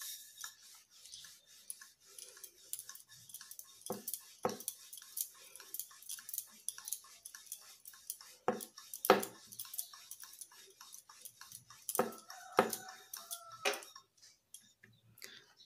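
Wooden rolling pin rolling out paratha dough on a wooden board: a run of rapid light ticks and clacks, with several louder wooden knocks as the pin and board shift.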